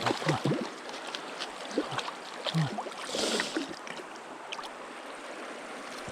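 A mountain trout stream running and gurgling, with scattered small clicks and a short louder hiss about three seconds in.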